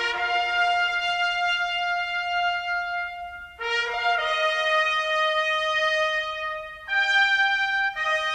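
Instrumental background music: long held chords in a brass-like sound, several notes sounding together, changing to a new chord every few seconds.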